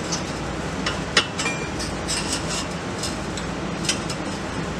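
Scattered metallic clicks and clinks of bolts and carrier parts being handled while the two halves of a driveshaft center-bearing carrier are fitted together around the driveshaft, over a steady background hiss.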